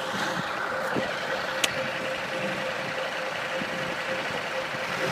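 Cat 277B compact track loader's diesel engine running steadily, with a faint steady tone in the sound. A single sharp click comes about a second and a half in.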